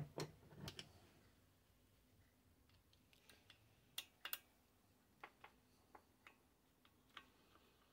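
Faint, scattered light clicks and taps of small metal parts being handled as a radiotelephone's metal chassis is taken apart by hand, with long near-silent gaps between them.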